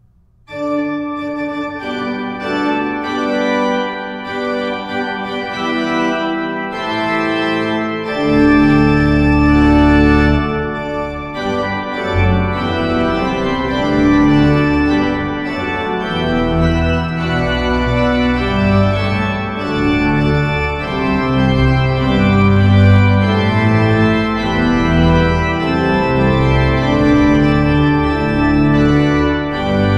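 Hauptwerk virtual pipe organ playing a march in sustained full chords. It starts about half a second in, and deep pedal bass notes join about eight seconds in.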